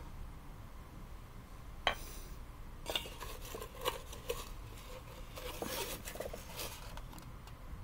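Handling a wooden recipe box: the lid comes off and is set down with a sharp knock about two seconds in. A few lighter knocks and scraping follow as a hand moves about inside the box.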